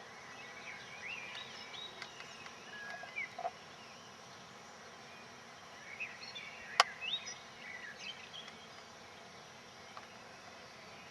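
Birds chirping and twittering in two bouts of short rising and falling calls, with a single sharp click about seven seconds in.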